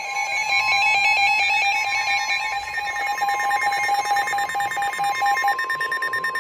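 Several NOAA weather radios sounding their alert together: a steady 1050 Hz warning alarm tone with rapid pulsing electronic beeps from the radios layered over it, signalling a severe thunderstorm warning broadcast. One set of beeps stops about five and a half seconds in.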